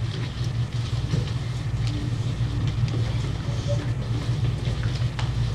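Steady low hum in the hall, with a few faint small knocks and shuffles as the actors move about the stage.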